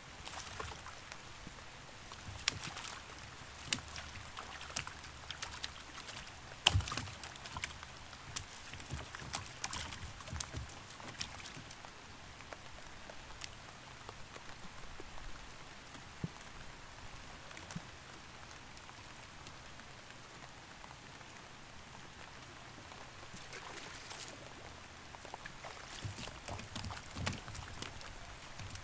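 Light rain pattering steadily on the river, with scattered knocks and taps as fish and cast net are handled in the bottom of a small boat; the loudest knock is about seven seconds in.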